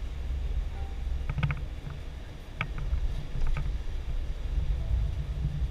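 Low, steady rumble of a tour coach's engine and tyres heard from inside the driver's cab while it drives along, with a few light clicks and rattles.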